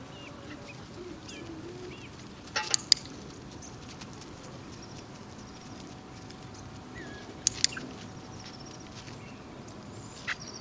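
Faint high bird chirps over a steady background hiss, broken by sharp clicks: a quick pair about two and a half seconds in, another pair about seven and a half seconds in, and a single one near the end.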